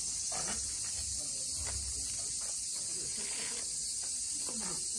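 Steady high-pitched insect chorus hissing without a break, with a few faint low thumps.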